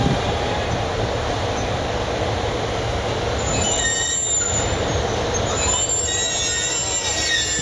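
Freight train rolling by with a steady rumble; from about three seconds in, its wheels squeal in several high-pitched tones that come and go.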